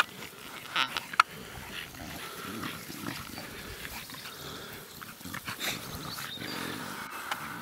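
Staffordshire bull terrier puppies and adult dogs playing, with short, irregular vocal sounds and a sharp click about a second in.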